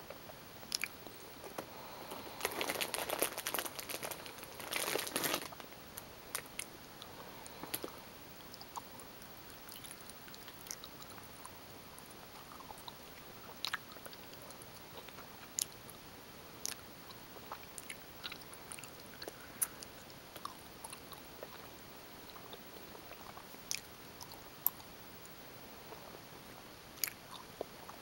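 Person chewing gummy bears, with scattered mouth clicks throughout and a louder, denser stretch of chewing about two to five seconds in.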